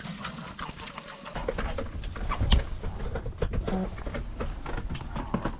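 Pigs feeding at a wooden trough of boiled potatoes: quick wet chewing and smacking clicks, with a short low grunt. From about a second and a half in, a low rumble of movement joins in, with one sharp knock, the loudest sound.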